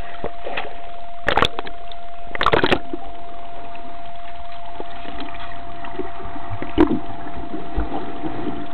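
Swimming-pool water heard through a camera at and below the surface: a steady muffled rush of churning water and bubbles with a thin steady tone beneath, broken by splashes about one and a half and two and a half seconds in and a single knock near seven seconds, as a dog plunges and swims through the bubbles.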